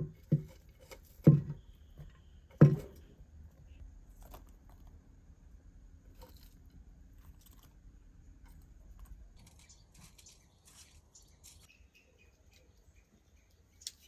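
Soft knocks of sliced onion and other ingredients dropped by hand into an unglazed clay pot, four in the first three seconds. After that only faint small ticks and rustles.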